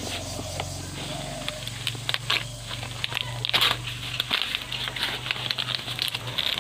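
Fresh banana leaf rustling and crinkling as it is folded and wrapped by hand around a leaf parcel, with irregular crackles that grow busier about two seconds in.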